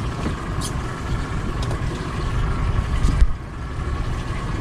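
Steady low rumble of a boat's outboard motor idling, with a faint steady hum above it; the level dips suddenly about three seconds in.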